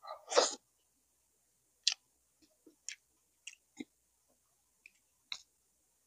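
Close-miked chewing of soft braised pork leg: wet mouth clicks and lip smacks at irregular intervals, the loudest cluster about half a second in.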